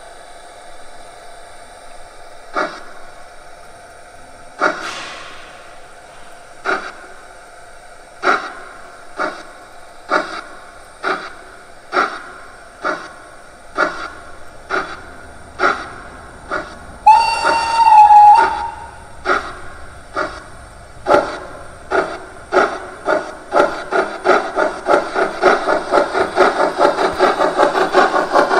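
Sound decoder (ESU LokSound) in a Gauge 1 model of a DR Class 52 steam locomotive playing the exhaust chuffs of a loco pulling away. The beats start slow, about one every two seconds, and quicken steadily to about four a second, with one whistle blast of about a second and a half a little past the middle.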